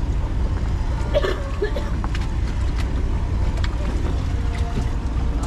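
A boat under way, its engine running with a steady low drone; faint voices come through briefly about a second in.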